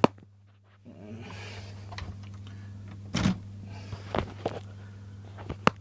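A phone being handled close to its microphone: a sharp click at the start, then rubbing and several knocks, over a steady low hum. A door is being opened.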